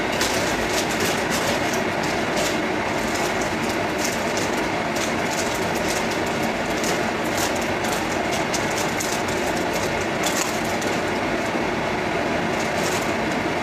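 Pot of water boiling on a gas stove: a steady rushing noise with many small crackles from the bubbling.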